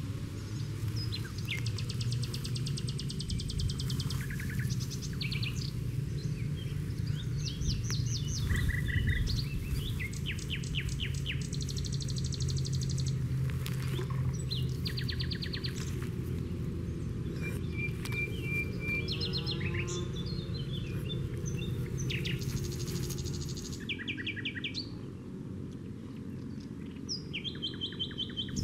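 Songbirds calling throughout, many short rapid chirping trills and a few brief whistles, over a steady low rumble.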